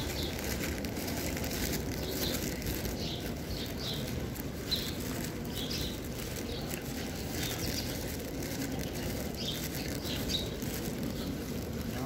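Steady low murmur of people moving and talking softly in a large hall, with scattered short high chirps.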